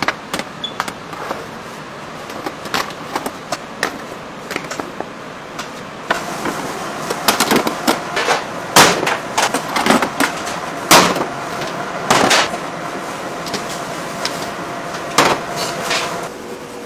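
Metal bread-loaf tins clanking and scraping against a deck oven's floor and each other as they are slid in and pulled out, in irregular knocks with the loudest clatter in the middle.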